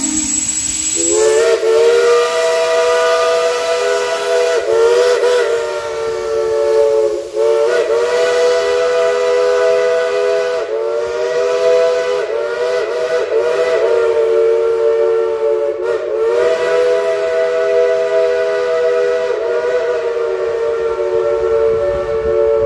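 Shay geared steam locomotive whistle blowing one long chord of several notes together, starting about a second in, with brief dips in pitch every few seconds as it is worked.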